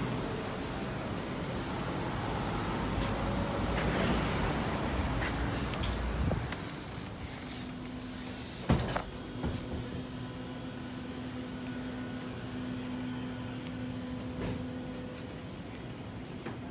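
Outdoor traffic noise for the first six seconds, then a sudden drop to quieter indoor ambience with a steady hum from convenience-store drink coolers. There is one sharp knock about two seconds after the change.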